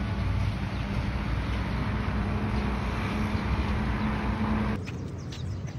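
Outdoor park ambience: a steady rumbling noise with a low hum, typical of wind on a phone microphone or distant traffic. About five seconds in it cuts suddenly to a quieter background with a few faint high chirps.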